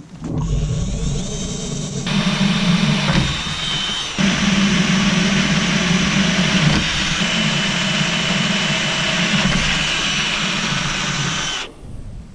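Electric drill running under load, boring a 3/16-inch pilot hole through steel plate, with a short dip about four seconds in before it carries on; it stops abruptly near the end.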